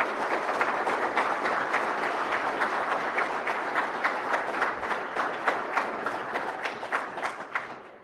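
Audience applauding: a dense patter of many hands clapping that thins out and stops near the end.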